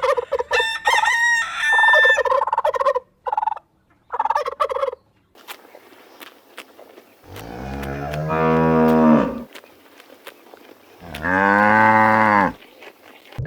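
A run of short, high calls from farm fowl, then a cow mooing twice: two long, deep moos of about two seconds each, a couple of seconds apart.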